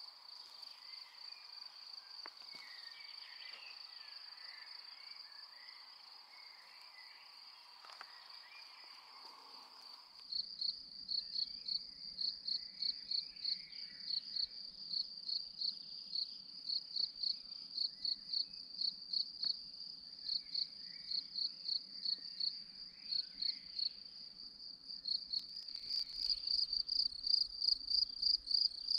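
Crickets chirping: a steady high-pitched trill that after about ten seconds turns into sharp, even chirps, about four a second, growing louder near the end.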